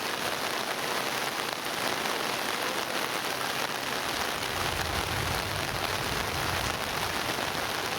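Monsoon rain falling steadily, an even hiss of rain on surfaces. A low rumble rises under it about halfway through and fades a couple of seconds later.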